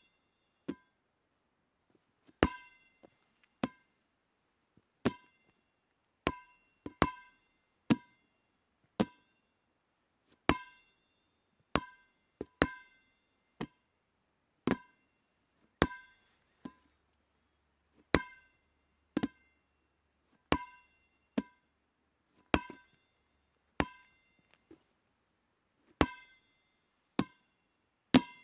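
Rubber dodgeball bouncing: a long string of separate, sharp single bounces at irregular intervals, some louder than others, each with a brief ringing tone.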